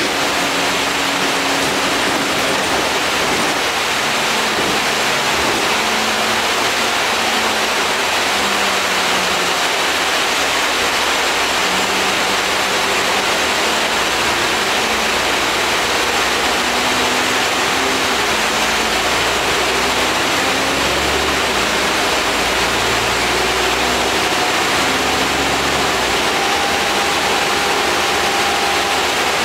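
Inside an Alexander Dennis Enviro 400 double-decker bus under way: a steady hiss of air conditioning and road noise over the diesel engine, whose low hum rises and falls in pitch as the bus changes speed.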